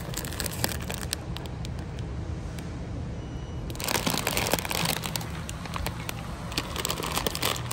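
Plastic bag of Riesen chocolate caramels crinkling as it is pulled off a supermarket shelf and handled, loudest about four seconds in and again near the end, over a steady low store hum.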